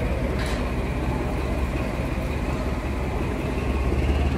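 Train running along the line: a steady rumble that swells a little near the end.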